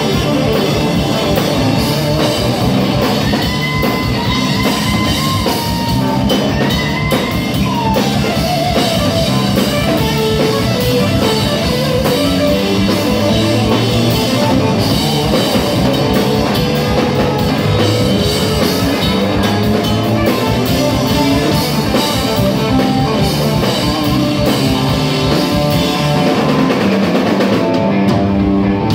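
Live rock band playing an instrumental passage: an electric guitar lead with bent, sliding notes over a drum kit.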